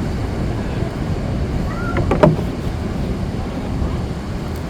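Steady beach ambience of wind rumbling on the microphone and surf, with a short knock about two seconds in.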